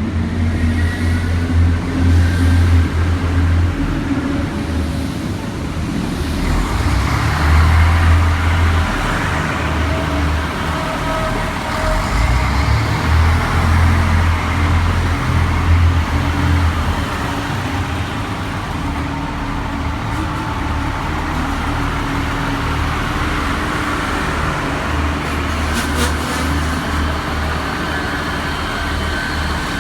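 A heavy vehicle running: a loud low rumble that swells and eases, with a faint steady whine over it.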